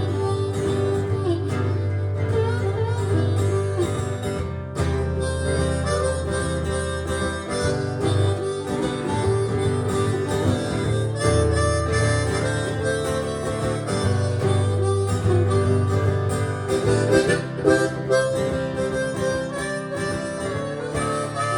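Blues harmonica taking an instrumental solo over acoustic guitar strumming.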